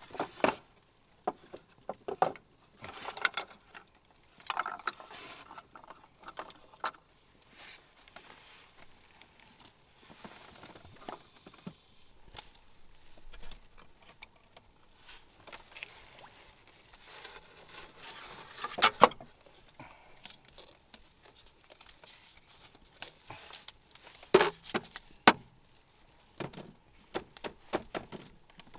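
Bamboo cups, a pot and pieces of bamboo being handled and set down on a slatted bamboo floor: scattered hollow knocks and clacks, the loudest about two-thirds of the way in and several more near the end.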